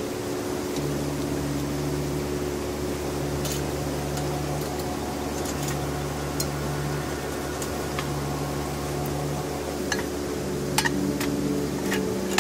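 Gas-canister camping stove burner running with a steady low roar, which starts about a second in. A few light metallic clicks and knocks come through it as the stove and pot are handled.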